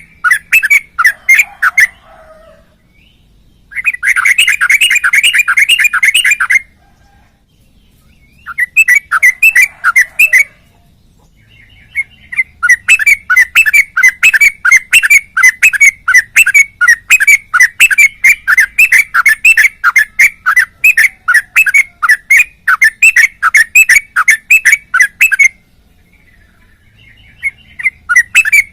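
Yellow-vented bulbul (trucukan) singing fast runs of repeated chirpy notes, about four or five a second, in several bursts broken by short pauses, with one long unbroken run of about thirteen seconds: the continuous 'ropel' song of a bird in full voice.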